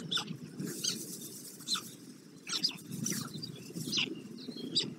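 Short, high bird chirps, repeating roughly once a second, over a steady low rumble.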